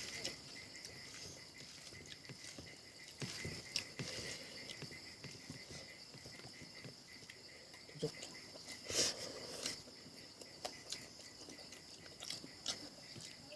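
A person eating, with chewing and short clicks and smacks now and then, the largest about three, four and nine seconds in. Insects chirr steadily at a high pitch behind it.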